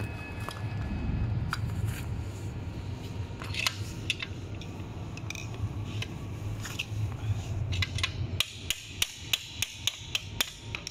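Sharp metal clicks and taps of a hex key working a bolt in an electric scooter's folding hinge, scattered at first and then a quick run of about ten clicks, about four a second, near the end.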